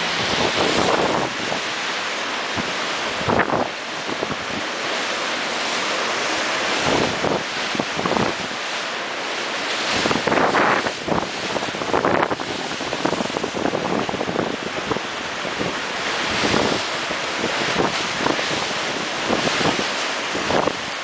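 Rough sea surf breaking and foaming over rocks, with wind buffeting the microphone in repeated gusts.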